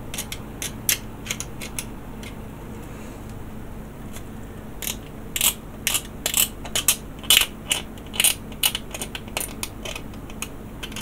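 Short, irregular scraping strokes on a plastic model kit part, scraping off excess paint. The strokes are sparse at first, then come thick and louder from about five seconds in.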